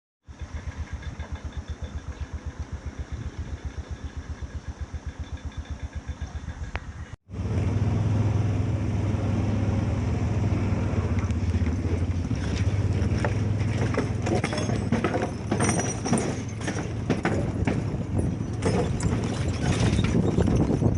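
A train's engine and running gear. First comes a fast, even mechanical pulse for about seven seconds. After a sudden cut it is replaced by a louder, steady low hum with frequent clanks and clicks.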